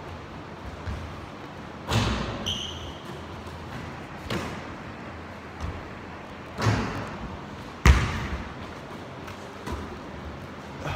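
Basketball hitting the hardwood gym floor and the hoop in a series of separate hard bounces that ring through the large gym. The loudest hit comes about eight seconds in.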